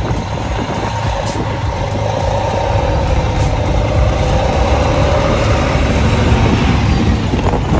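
Semi truck's diesel engine running steadily at idle: a low rumble with a faint, wavering whine, getting gradually louder.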